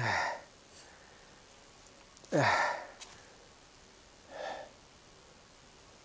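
A man's breathy vocal sighs: two short exhalations with a quickly falling pitch, the second louder, about two and a half seconds apart, then a softer breath without voice about four and a half seconds in.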